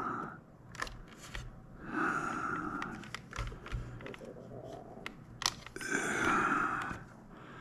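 Hands working small plastic joystick parts: a few sharp clicks, and two longer scratchy sounds about two and six seconds in.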